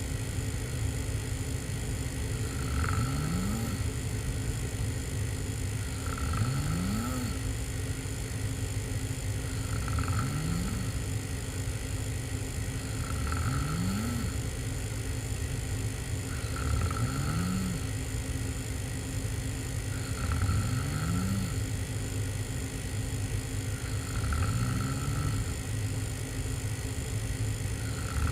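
A person snoring hard with the mouth open while lying on the back: about eight snores at a steady rhythm, one every three and a half seconds, each rising in pitch.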